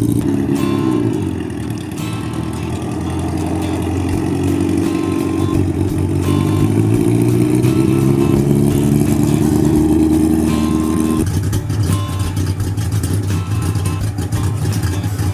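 Engine of a 1979 Kawasaki KZ1000 motorcycle, an air-cooled inline four, being ridden. The pitch dips briefly at the start, then climbs steadily for about nine seconds under acceleration and drops sharply about eleven seconds in, as at a gear change.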